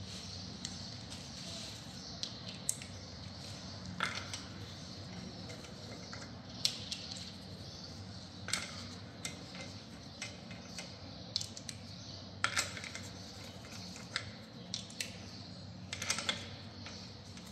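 Irregular light metallic clicks and taps of wheel bolts being handled and threaded by hand into a car wheel hub, over a low steady hum.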